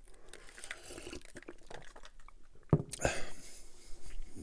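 Drinking dark soda from a glass close to the microphone: quiet sips and swallows, then a sharp knock and a louder noisy stretch about three seconds in.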